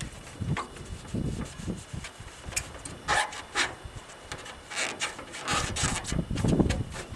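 Plastic taillight lens being rubbed by hand with a polish applicator, in uneven rubbing strokes.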